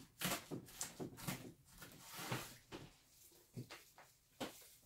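Walnut pieces being gathered on a wooden cutting board and scattered over a cake: faint, irregular light taps and clicks, about a dozen, with soft rustling between them.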